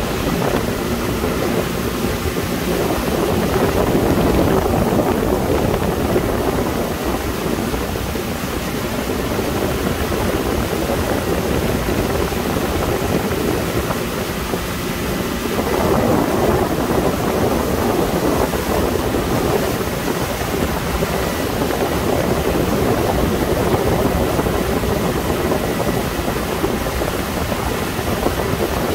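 A Sea Ray 21 motorboat under way at speed: a steady rush of wind and water with the boat's engine running underneath, swelling a little louder now and then.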